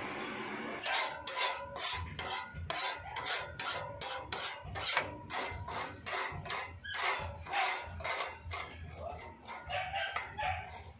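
Metal tool scraping over a charcoal grill's grate and coals in quick, rasping strokes, about three a second.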